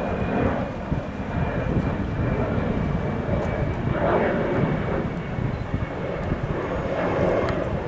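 The twin turbofan engines of an Embraer 190 airliner climbing overhead after takeoff, giving a steady jet roar.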